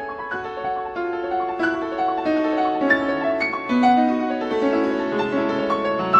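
Background piano music: a continuous run of notes over held chords.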